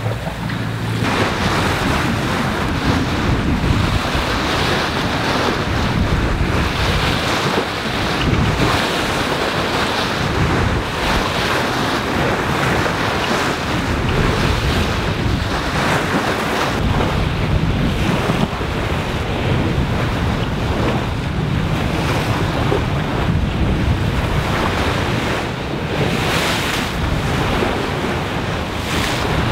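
Sea water rushing and splashing along the hull of a sailing yacht under way, swelling and easing every few seconds, with wind buffeting the microphone.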